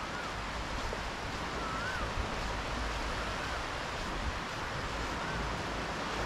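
Gentle surf washing in over a flat sandy beach: a steady wash of water noise. A faint short wavering whistle comes four times over it.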